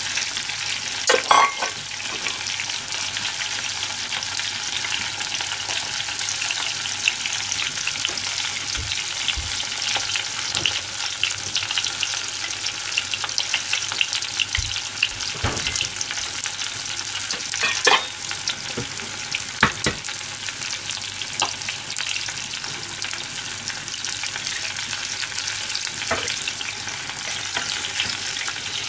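Food deep-frying in a pot of hot oil: a steady crackling sizzle, with a few sharper clicks standing out about a second in and again near the middle.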